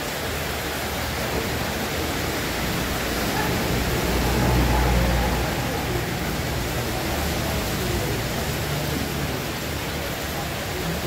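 Steady hiss-like noise with indistinct voices murmuring underneath, swelling slightly about halfway through.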